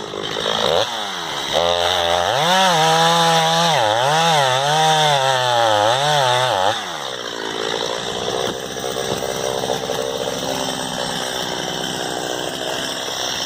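Two-stroke chainsaw cutting into the tree's trunk. The engine speed rises and falls repeatedly under load, then settles to a lower, steadier running about seven seconds in.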